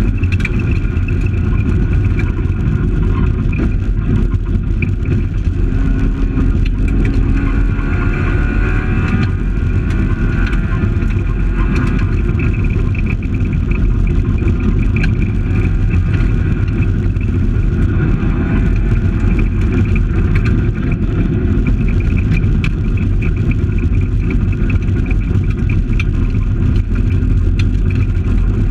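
Fiat Palio rally car heard from inside the cabin, driven hard on a gravel stage. The engine revs rise and fall several times over a constant heavy rumble from the road, with scattered short clicks.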